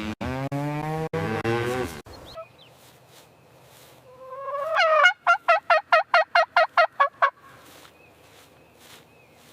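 A cow mooing for about two seconds, its pitch sliding. Then, after a short pause, a farm bird's call rises and breaks into a rapid run of about a dozen pulses, about five a second, stopping abruptly.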